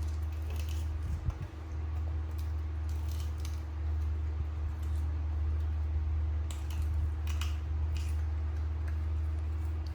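Scattered small crunching clicks of pets chewing Indian jujube fruit, in clusters about a second in and again in the second half. A steady low hum runs under them.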